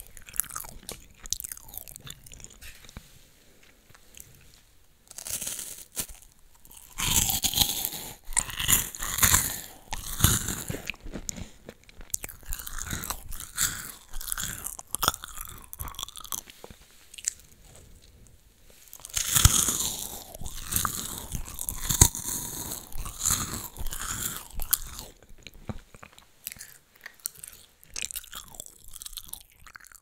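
Close-miked biting and chewing of a crisp Loacker cream-filled wafer. Two spells of loud crunching come about seven and nineteen seconds in, with softer chewing between them, and the chewing grows quieter near the end.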